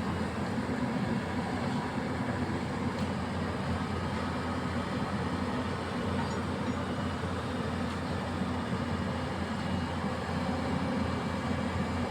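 Excavator's diesel engine running steadily, a constant low rumble with no clear impacts or changes.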